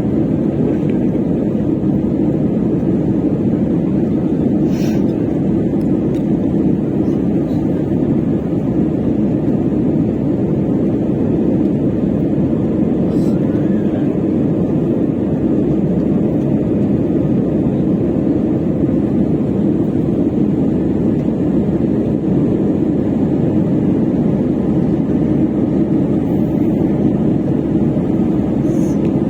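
Steady rumble of an airliner cabin in flight: engine and airflow noise heard from inside the plane, even and unchanging.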